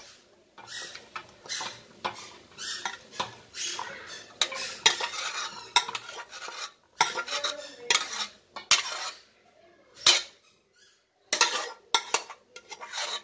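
Metal ladle scraping and clinking against an aluminium pressure cooker as cooked mutton pieces are scooped out into a steel bowl: irregular scrapes and knocks, with a brief lull about ten seconds in.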